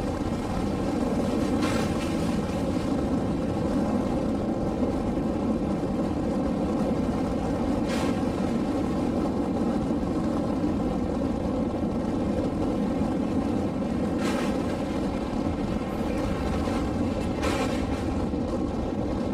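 Passenger train running at speed, heard from an open coach doorway: a steady deep rumble of wheels and rushing air. A few brief high hisses cut through it, about 2, 8, 14 and 17 seconds in.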